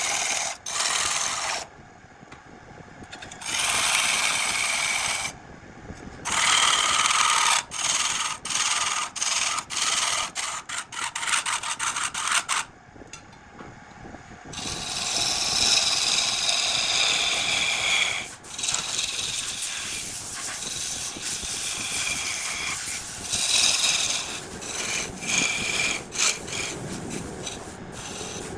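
Jackfruit wood spinning on a woodturning lathe, worked with a tool: a scraping, rasping hiss that comes in bursts, broken by short pauses and quick on-off touches around the middle, then a longer steadier pass.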